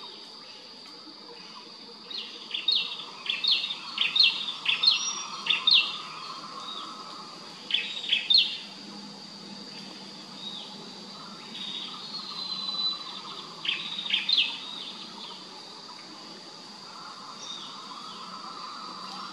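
A bird calling in quick runs of short, high, falling notes, one long run of several seconds and a brief one later, over a steady high-pitched insect drone.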